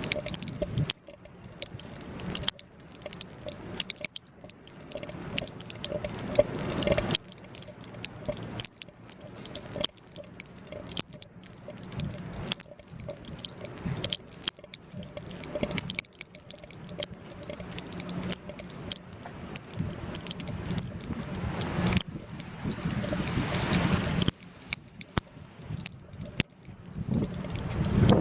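Blizzard wind gusting over the camera's microphone, rising and falling unevenly, with many irregular sharp ticks and patters throughout.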